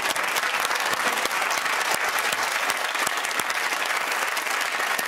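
Studio audience applauding steadily, a dense crackle of many hands clapping.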